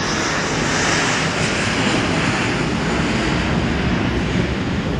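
Jet engines of a Boeing 777-300ER (GE90-115B turbofans) running on the ground, a steady rumble with a strong hiss on top.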